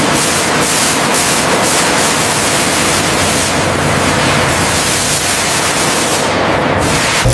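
A loud, steady hiss, like rushing air or spray, that thins a little in its upper part near the end.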